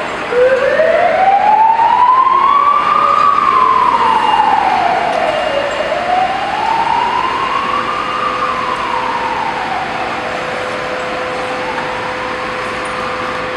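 Emergency vehicle siren sounding a slow wail that starts about half a second in: the pitch climbs and falls about every five seconds, three times, growing fainter toward the end. A steady background hiss of street noise lies underneath.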